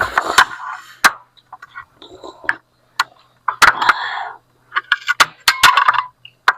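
Eating noodles: three short slurping and chewing bursts, with sharp clicks of utensils against the bowl between them.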